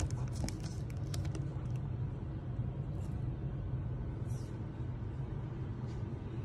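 Steady low background rumble, with a quick run of light clicks in the first second or so and a few faint ticks later.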